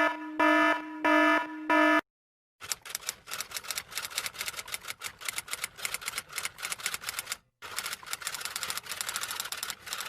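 A sound effect: four short electronic beeps in the first two seconds, then after a brief gap a long run of fast clicking clatter, many clicks a second, with a short break about seven and a half seconds in.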